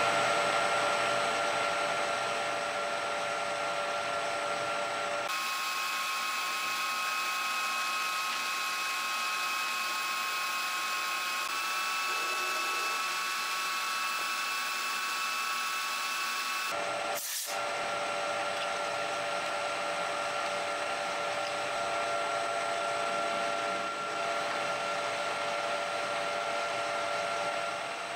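Colchester 1800 manual lathe running steadily with a whine of several steady tones while a tool single-point cuts an external thread. The sound shifts abruptly about five, eleven and seventeen seconds in, with a short click just after the last shift.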